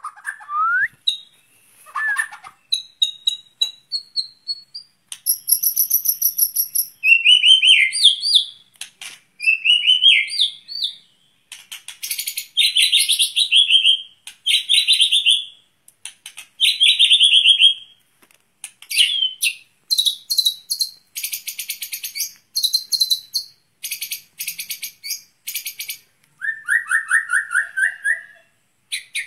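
White-rumped shama (murai batu) singing a long, varied song: clear slurred whistles mixed with fast trills and rapid rattling runs of notes, phrase after phrase with only short pauses.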